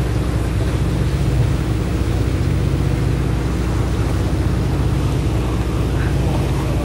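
Warship's engines and machinery running with a steady low drone, heard on deck while the ship is under way.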